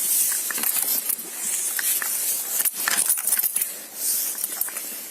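Small metal items jingling and clicking, in a string of irregular sharp clicks over a hissy rustle.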